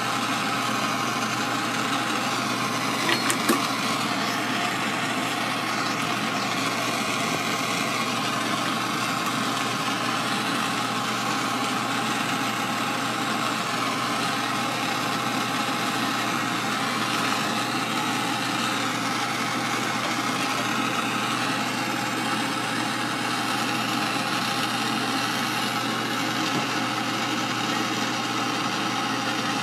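Handheld canister torch flame hissing steadily as it heats flatware pieces for sweat soldering. A few light clicks come about three seconds in.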